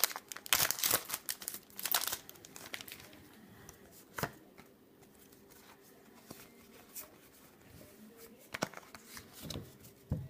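Pokémon booster pack's plastic foil wrapper crinkling and tearing open during the first few seconds, then quieter handling of the pulled cards with a few light taps.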